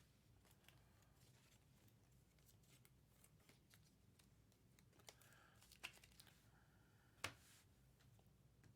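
Near silence with faint handling of trading cards and plastic card holders: a few soft clicks in the second half, the sharpest about seven seconds in.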